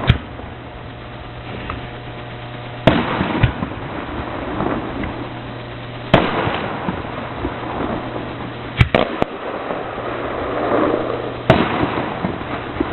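Aerial fireworks display: about seven sharp bangs of shells bursting, a few seconds apart, with a haze of crackle and rumble between them.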